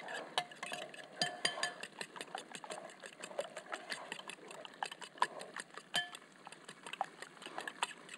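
Fork beating eggs in a glass bowl: quick, uneven clinks of metal against glass, several a second.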